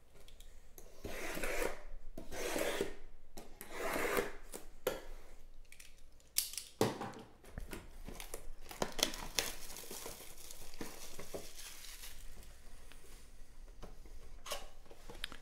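Wrapping and cardboard being torn open on a sealed box of trading cards: several long tearing rips in the first few seconds, then crinkling and rustling, with light knocks of cardboard boxes being handled.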